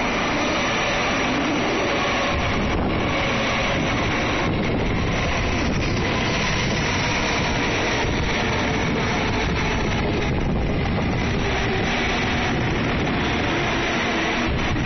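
N700 Series Shinkansen bullet train pulling in and sliding past close alongside as it slows to stop: a loud, steady rush of wheels and air, with a faint whine over it.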